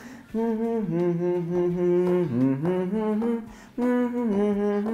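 A man humming a children's-song melody with his mouth closed, in long held notes. The tune dips low in pitch about halfway through and breaks off briefly before picking up again.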